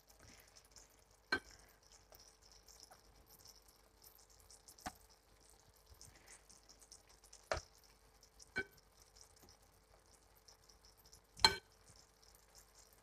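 Kitchen tongs clinking against the steel pan and a glass bowl as meatballs are lifted out of the sauce and set down: five sharp clinks a few seconds apart, the last two with a short ring. Under them a faint sizzle of the simmering tomato sauce and a steady low hum.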